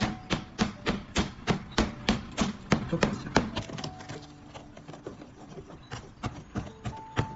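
A brick knocking repeatedly against a car body panel covered with paint protection film, sharp hard knocks at about three a second. The knocks pause for a few seconds after about halfway and start again near the end.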